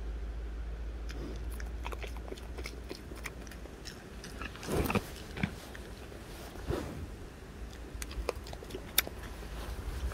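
Bongo antelope biting and chewing a piece of carrot, with crisp crunches scattered throughout and a few louder ones near the middle.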